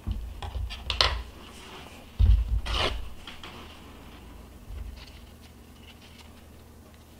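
Scissors snipping through a strip of light-seal material, a few short clicks with the sharpest cut about a second in. About two seconds in, the scissors and strip are set down on a wooden tabletop with a knock, followed by a fainter knock near the middle.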